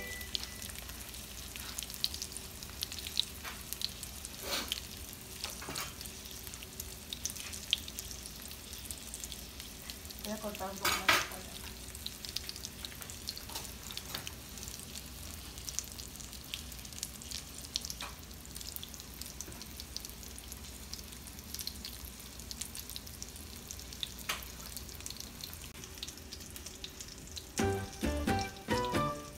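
Coconut-breaded chicken pieces frying in hot oil in a pan: a steady sizzle dotted with crackles and pops, with one louder burst about eleven seconds in. Music comes in just before the end.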